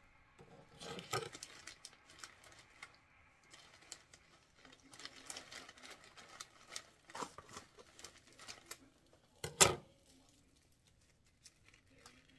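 Rustling and crinkling as hands pull and handle crisp edible Easter grass, with scattered light clicks and one sharper click about ten seconds in.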